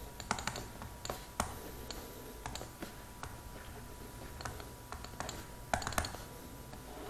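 Faint, irregular taps and clicks of a stylus on a pen tablet as a heading is handwritten, a dozen or so light ticks at uneven spacing.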